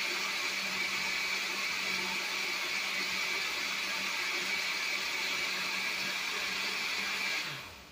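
Countertop blender running steadily on high, churning a liquid flan batter of eggs, milk and cream cheese. Near the end it is switched off and the motor winds down with a falling hum.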